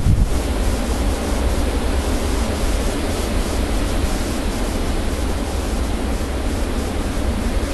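Blizzard wind blowing, a loud steady rush of noise with a low rumble from gusts buffeting the microphone. A heavier gust dies down just after the start.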